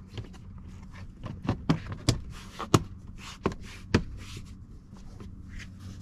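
Plastic interior trim panel of a pickup cab being handled and pressed back into place over the routed wiring: a series of about six sharp clicks and knocks in the middle seconds, with some rustling between them.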